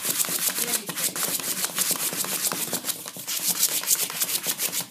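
A Lhasa Apso puppy's claws scrabbling and scratching fast and continuously on cardboard as it paws at it.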